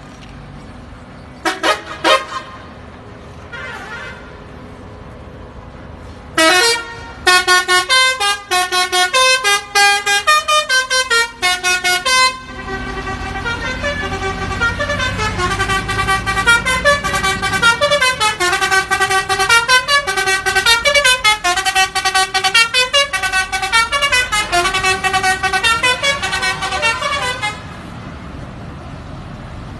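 Bus 'telolet' horn, a set of air-horn trumpets sounding chords of several notes at once. A couple of short blasts come first. Then a fast run of notes begins a few seconds in, followed by a longer stepping tune over a low rumble, which stops a couple of seconds before the end.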